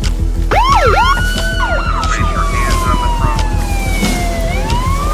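Emergency-vehicle siren over background music with a steady beat: a few quick whooping sweeps about half a second in, then a long slow falling wail that rises again near the end.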